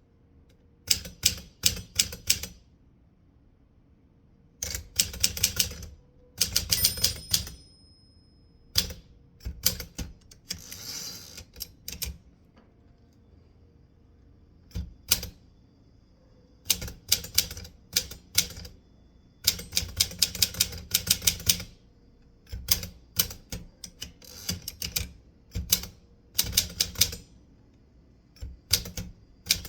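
Typewriter keys striking in quick bursts of a few to a dozen clicks, with pauses of a second or two between bursts as the writer stops to think.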